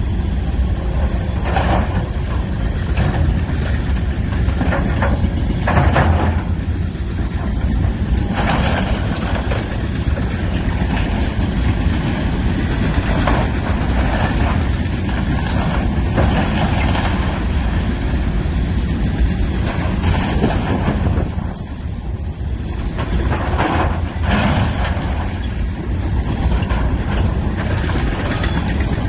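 Tracked excavator's diesel engine running under load as it pulls apart the wooden structure of a grain elevator, with irregular cracking and crashing of splintering timber and falling debris several times.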